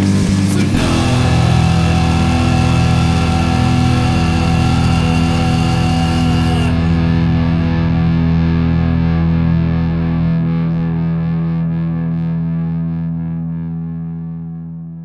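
Punk rock song's closing chord: distorted electric guitar and bass struck after a last few drum hits and left ringing. It sustains steadily, then thins and fades out slowly, with the bass dropping away about two-thirds of the way through.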